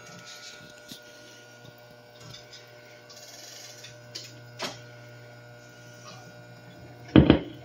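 Wurlitzer 1015 jukebox's record-changer mechanism running: a steady motor hum with a few light clicks as it carries the selected record up from the magazine to play position, then a loud clunk near the end.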